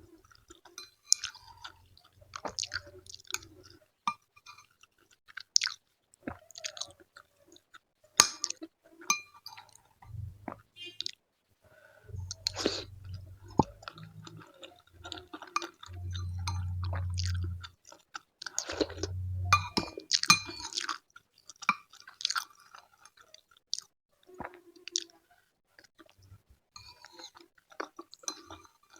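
Close-miked eating sounds: wet chewing and crunching of food in the mouth, with many small sharp clicks. A few low, muffled rumbles of a second or two are heard in the middle.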